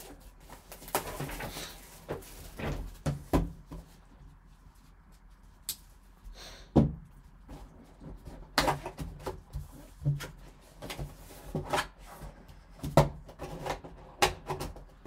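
Gloved hands opening a cardboard trading-card box and pulling out its contents: rustling of cardboard and plastic wrap, with scattered light knocks and taps.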